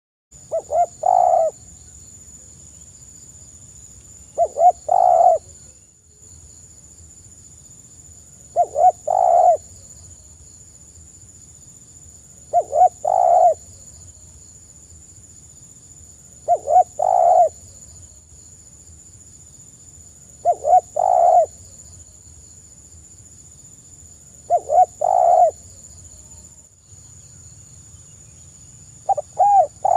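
Spotted dove cooing in a soft voice: a phrase of two or three short notes ending in a longer coo, repeated about every four seconds, eight times.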